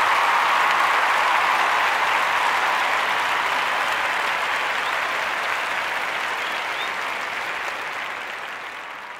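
Crowd applauding and cheering, with a couple of faint whistles, gradually fading out over the last few seconds.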